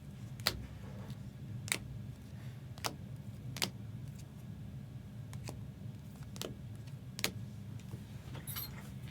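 Seven short, sharp clicks, roughly one a second, over a steady low hum.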